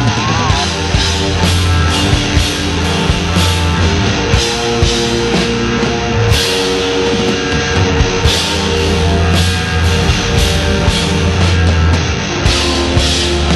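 Loud noise-rock music with a steady drum beat and heavy bass.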